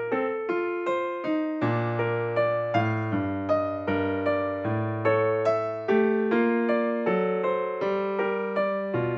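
Background music: a piano or electric piano playing a steady run of notes over a bass line.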